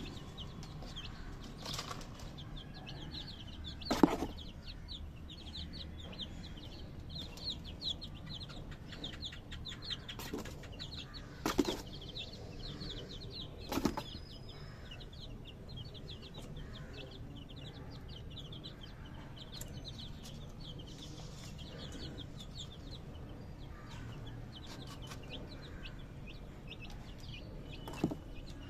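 Baby chicks peeping, many short high chirps overlapping without a break. Several sharp knocks cut in, the loudest about four seconds in.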